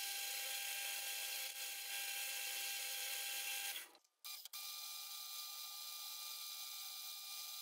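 Hafco AL250G metal lathe running steadily with a faint whine while turning the taper on a 1045 steel cone. After a brief break near the middle it runs on, its whine at a slightly different pitch.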